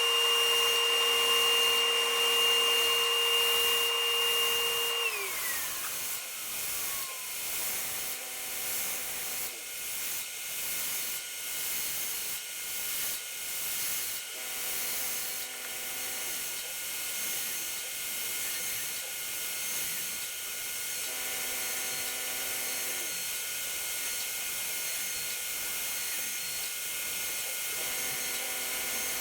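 CNC router cutting wood. Its steady high whine glides down in pitch about five seconds in, and a steady hiss continues after it. A short motor whine returns about every seven seconds.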